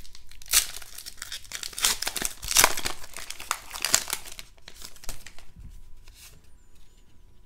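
Foil-lined trading card pack being torn open and crinkled: a dense crackling of the wrapper for about four seconds, loudest in the middle. After that comes fainter rustling as the cards are handled.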